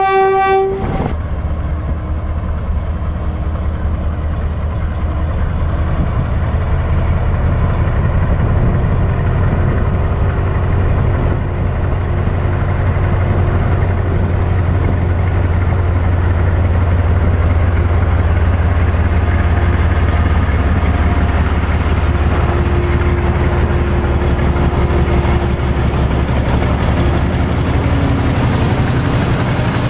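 A Pakistan Railways RGE-24 diesel-electric locomotive's horn cuts off just under a second in. Then the locomotive's diesel engine runs with a steady, deep rumble as it hauls a goods train of box wagons past.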